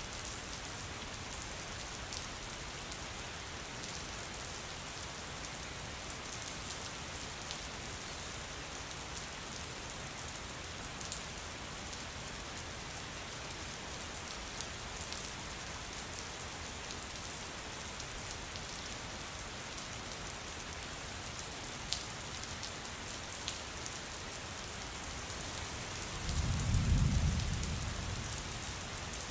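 Steady rain falling, with scattered sharp drips. Near the end a low rumble of distant thunder swells and fades over a couple of seconds.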